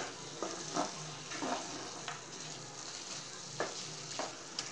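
Spatula stirring and scraping thick bread halwa around a non-stick frying pan, in irregular strokes over a steady low sizzle. The halwa is cooked down to the stage where the ghee separates out and it no longer sticks to the pan.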